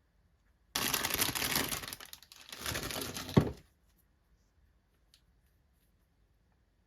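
Doll packaging being handled and opened: two bursts of crinkling and tearing, the second ending in a sharp snap.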